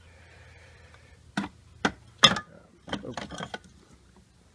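Trophies knocking against each other and a plastic storage bin as they are handled and rummaged through: three separate sharp knocks, the third the loudest, then a quick run of rattling clicks.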